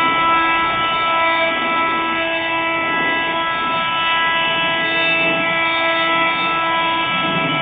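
Bosch Multitool 250 oscillating multi-tool running steadily with a sanding sheet on its pad, sanding: a loud, even, high-pitched buzz.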